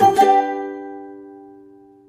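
Background music on a plucked string instrument: a final chord struck at the start rings and slowly fades away.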